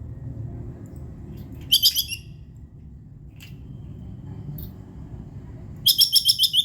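Tree squirrel's chattering 'kekes' call: a short burst of sharp, high-pitched chips about two seconds in, then a faster run of about ten chips a second near the end, over a steady low rumble.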